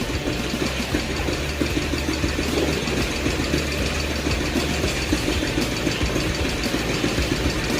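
1964 AJS Model 14 CSR's 250 cc single-cylinder four-stroke engine running steadily at a low, even beat.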